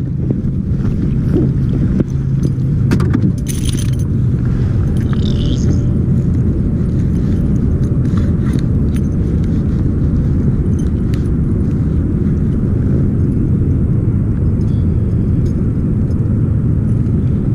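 Boat motor running steadily, a low rumble with a constant hum. A few sharp metallic clicks and scrapes come about three to four seconds in.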